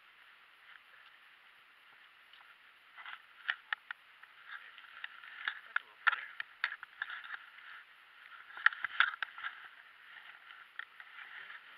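Dry grass and reeds rustling and crackling, with clusters of sharp clicks and snaps from about three seconds in, loudest around six and nine seconds, over a steady faint hiss.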